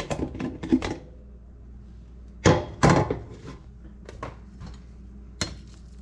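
Cookware knocking and clattering: a few quick knocks at the start, two louder strikes about two and a half seconds in, and one more near the end.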